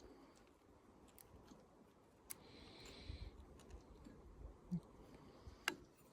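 Faint, scattered clicks and ticks of a chainsaw chain being fitted onto the bar by hand, with a brief soft rasp about a third of the way in.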